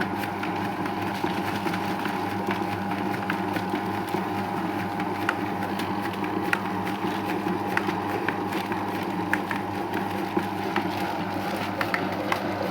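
Cake-dough mixing machine running with a steady motor hum, with scattered light clicks throughout.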